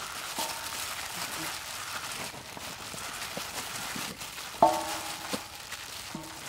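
Gloved hands tossing raw chicken drumsticks in flour on a metal tray: soft rustling of plastic food-prep gloves with faint light taps. About three-quarters of the way through, a short, loud pitched call cuts in, with a fainter one near the end.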